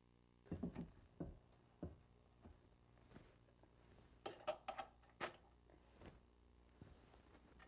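Faint knocks of hands handling a porcelain pedestal sink, then a quick run of small metal clinks about four to five seconds in as a washer is slipped over the wall bolt that holds the sink.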